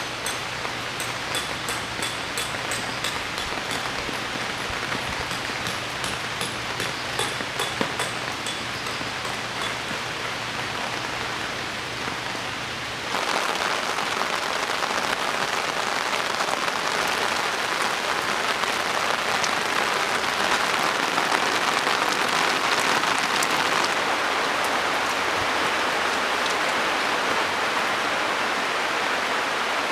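Heavy rain falling, with single drops pattering distinctly over a steady rain hiss and a faint low hum. About 13 seconds in, the sound changes abruptly to a louder, denser downpour.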